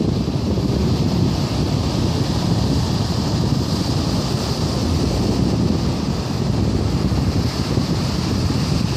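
Ocean surf washing on the shore in a steady, unbroken rush, with wind rumbling on the microphone.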